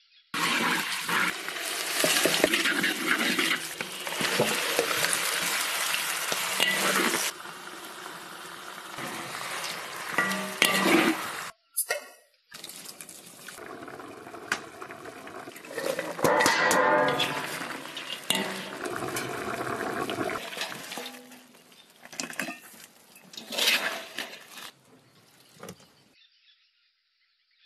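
Hot oil sizzling loudly in a wok as chili paste goes in, then a run of short wok-cooking cuts with sizzling, stirring and clatter of the pan. The sound drops out briefly about twelve seconds in and goes nearly silent just before the end.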